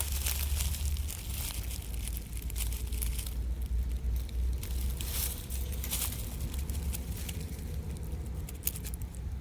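Rustling and crackling of dry leaves and brush, in irregular bursts that are strongest near the start and again about halfway through, over a steady low rumble.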